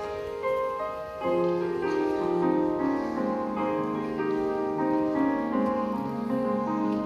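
Piano music of slow, held chords. Lower, louder notes come in about a second in.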